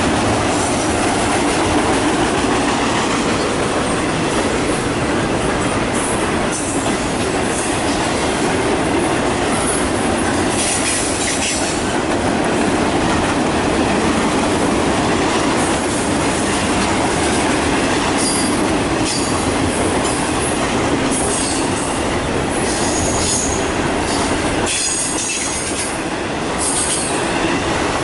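Double-stack container well cars of a freight train rolling past on a curve: a steady rumble of steel wheels on rail, with high-pitched wheel squeal coming and going.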